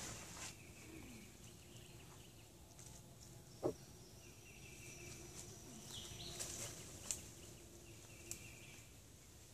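Faint outdoor ambience of scattered bird chirps and insect calls, with one short sharp sound about three and a half seconds in and a few light clicks later.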